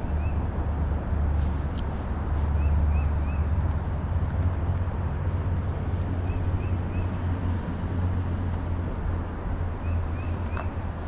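Steady low outdoor rumble and hiss, with a small bird repeating a quick three-note call about every three and a half seconds.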